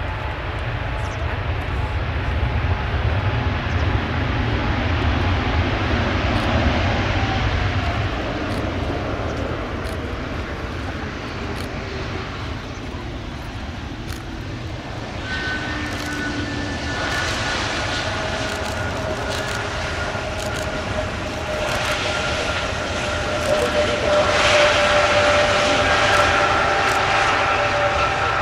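Airbus A321neo turbofan engines running as the airliner rolls along the runway: a steady jet rush with a low rumble at first, then a steady engine whine that comes in about halfway and grows louder toward the end.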